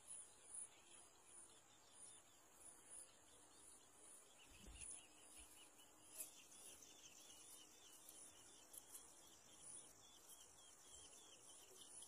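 Faint insects, crickets by their sound, chirping in a steady high-pitched pulse about twice a second.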